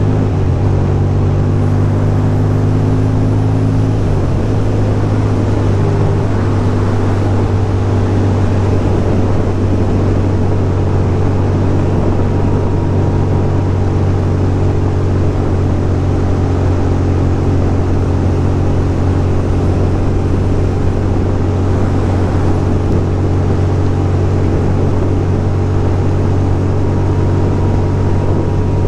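2006 Ducati Monster 620's air-cooled L-twin engine running at cruising speed, with wind rush over it. Its note drops about four seconds in, then holds steady.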